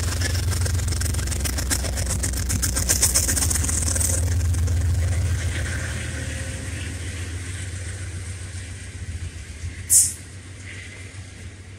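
Amtrak diesel locomotive passing close by with a loud, steady engine rumble and rattling wheels, followed by its passenger cars rolling past as the sound slowly fades. A brief, loud hiss comes about ten seconds in.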